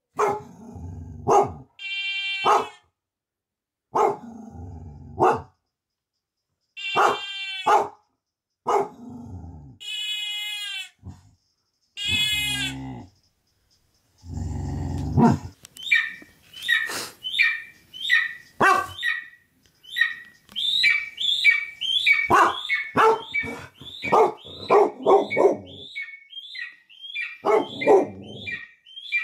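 Recorded dog sounds playing through a laptop speaker: separate barks and high whining, yelping calls with abrupt silent gaps between them, then about halfway through a fast, busy run of short high yips and barks.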